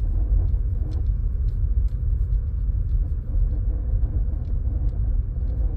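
2016 Audi A4's 2.0 TFSI EA888 Gen 3 four-cylinder turbo petrol engine running: a steady heavy low rumble with faint sharp ticks a few times a second at irregular spacing. It is a noise whose cause the owner does not know.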